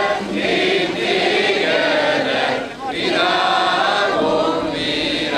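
A crowd of many voices singing a Hungarian song together, holding long notes.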